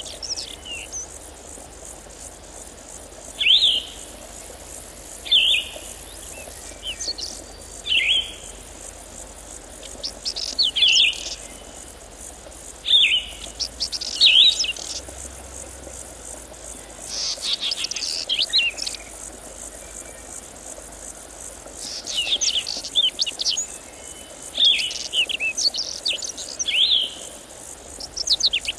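A songbird singing short, quick phrases, repeated every two to three seconds, over a steady high chirring of insects.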